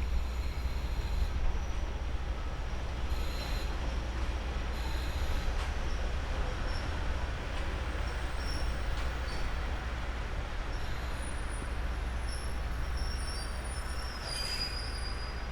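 Kominato Railway diesel railcar, a steady low engine rumble with brief high-pitched squeals now and then.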